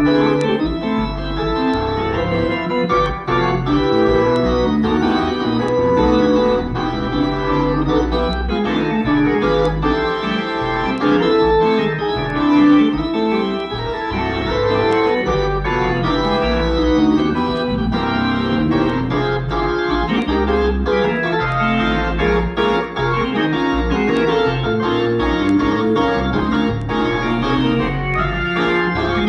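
Organ playing a continuous stream of held chords over a moving bass line.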